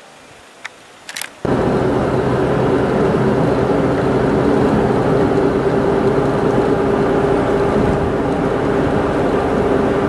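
Road and engine noise inside a car driving at steady speed on a highway: a steady drone with a constant hum. It starts abruptly about one and a half seconds in, after a few faint clicks.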